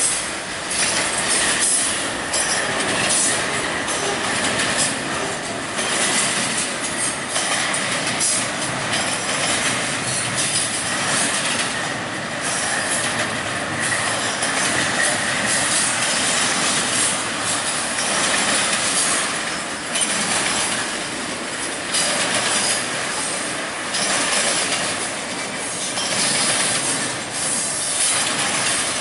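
Double-stack intermodal freight train of container well cars rolling steadily past, wheels clacking irregularly over the rail joints with a thin, high wheel squeal running under the noise.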